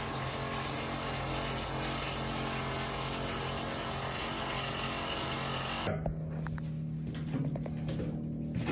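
A machine runs steadily with a low hum under a broad, even noise, then cuts off abruptly about six seconds in. A quieter low hum and a few light knocks follow.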